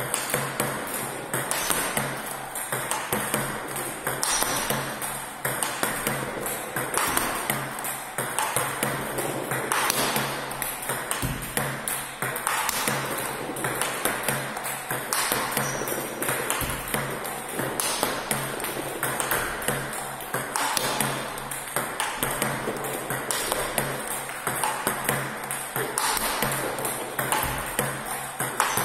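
Table tennis rally: a celluloid-type ball clicking off rubber bats and bouncing on the table in a steady quick back-and-forth, a drill of backhand counter-hits against forehand topspin strokes.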